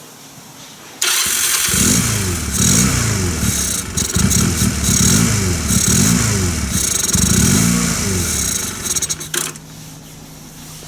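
Honda Rebel 250 (CMX250C) parallel-twin engine catching about a second in and being revved up and down several times, then cutting out shortly before the end. The bike has sat for several years and is hard to start and idles badly.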